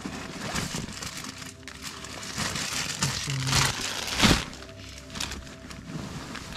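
Rustling and crinkling of kit bags and ration packs being handled and packed, with a louder rustle about four seconds in.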